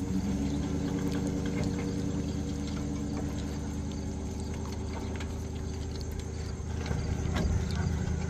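An engine running steadily at idle, with light scattered clicks and taps of steps on wooden dock boards.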